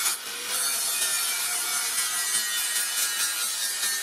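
Angle grinder with an abrasive disc grinding the edge of a steel sword blade cut from a motorcycle brake rotor: a steady, hissing grind that eases for a moment just after the start.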